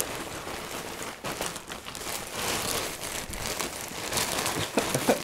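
Paper towels crinkling and rustling as they are crumpled and wrapped around a container by hand, an irregular crackle of many small clicks.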